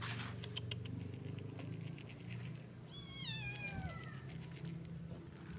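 Dry cat kibble rattling onto a tiled step in the first second, then a cat gives one long meow that falls in pitch about three seconds in, over a low steady hum.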